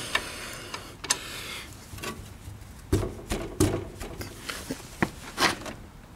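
Steel combination wrenches clinking and knocking as a second wrench is fitted onto the first at a diesel generator's oil drain plug. Scattered clicks run through, with two duller knocks about three and three and a half seconds in.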